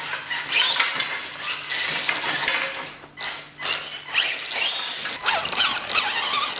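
Small electric motor and gears of a 1/10-scale 6x6 RC crawler truck whining, the pitch rising and falling with the throttle, with clicks and clatter from the chassis and tyres crawling over wooden planks. The sound dips briefly a little after three seconds.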